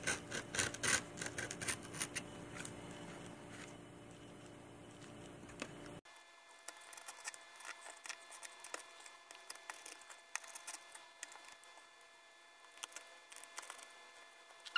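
X-Acto knife blade cutting through stretched canvas fabric: faint, irregular scratchy snips and clicks as the blade is worked along the cut.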